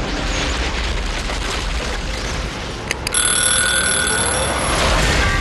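A rushing noise runs for about three seconds. A click follows, then a cartoon alarm clock rings with a steady shrill tone for about two seconds. It is the wake-up signal that it is time to loosen the garden soil.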